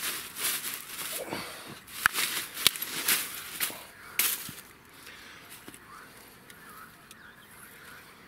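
Close rustling and crackling with several sharp clicks as fishing line is wound in by hand among twigs. It goes much quieter after about four and a half seconds.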